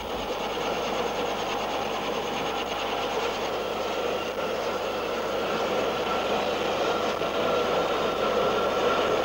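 Bell XV-15 tilt-rotor's turboshaft engines and rotors running in helicopter mode: a steady rush of noise under a whine of a few steady tones, growing slightly louder near the end.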